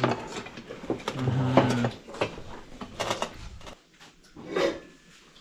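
Clinks and knocks of steel dinner plates and bowls being handled and set down on a table during a meal.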